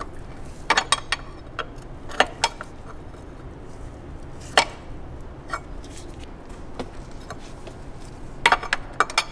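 Light metallic clicks and clinks of a fan clutch wrench working on the VANOS solenoid as it is tightened, scattered and irregular, with a cluster of clicks about a second in and another near the end.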